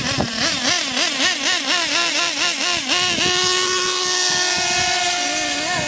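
Nitro RC car's small two-stroke glow-fuel engine, screaming at high revs. For the first few seconds the throttle is blipped in quick swells about three times a second, then about halfway through it holds a steady high pitch at full speed.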